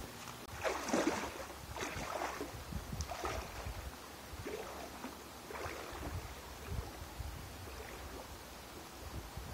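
Legs wading through knee-deep river water, a swishing splash with each stride about once a second, growing fainter as the wader moves away.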